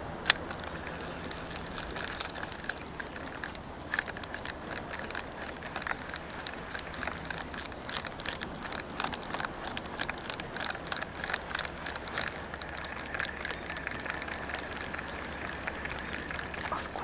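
Irregular clicking and ticking from a Daiwa Revros 1000 spinning reel and light rod as a jig is worked back in, with a sharp click just after the start. A steady high-pitched whine runs underneath.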